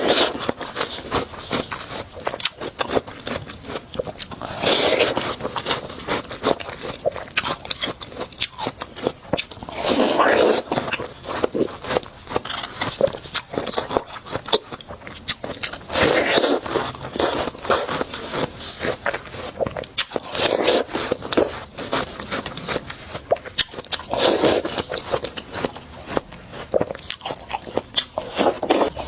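Close-miked biting and chewing of watermelon: a crunchy, juicy bite every four to six seconds, with wet chewing clicks and smacks in between.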